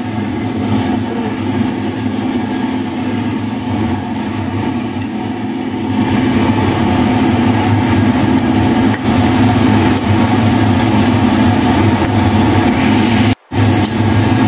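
Steady low mechanical hum over a pot of beef soup at a boil. The hum gets louder about six seconds in and cuts out for a moment near the end.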